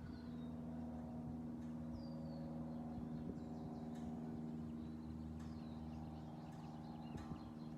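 Wild birds giving short, high, falling chirps a few times over a steady low hum.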